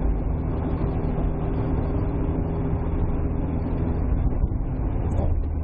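Car driving at a steady speed, heard from inside the cabin: an even engine drone with road and tyre noise.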